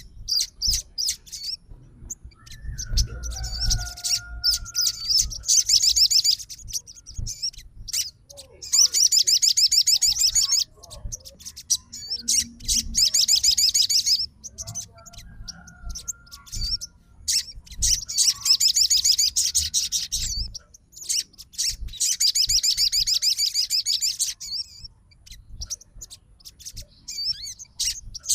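Sogon songbird calling in fast, high-pitched chattering trills, about six bursts of two to three seconds each with scattered short chirps between them.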